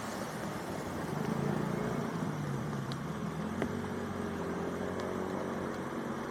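A motor vehicle's engine running, louder about a second in, its pitch sinking then holding steady, over a steady hiss.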